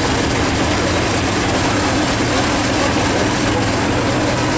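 Engines of off-road 4x4 trucks running steadily, a loud, even low drone with no revving.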